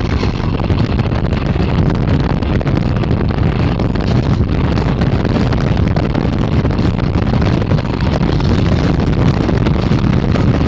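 Steady wind noise on the microphone of a motorcycle riding at highway speed, over the bike's road and engine noise.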